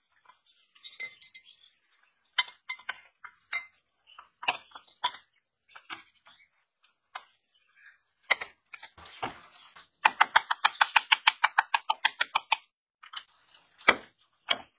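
Small geared motor being dismantled by hand: scattered clicks and knocks of its plastic casing and metal parts. About ten seconds in there is a quick even run of clicks, about ten a second, for a couple of seconds.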